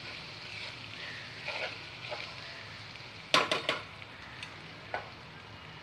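Onion and potato tempering sizzling in oil in a nonstick kadhai as a spoon stirs and scrapes through it. A little past halfway come three quick sharp knocks, and a single one follows about a second later.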